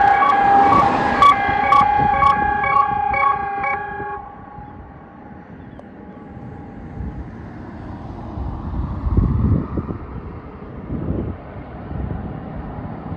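Klaxon ES3S 12-horn emergency siren sounding its two-tone hi-lo alarm, which stops about four seconds in at the end of the test. The tone echoes away over the next few seconds, leaving low outdoor rumble with a few gusts.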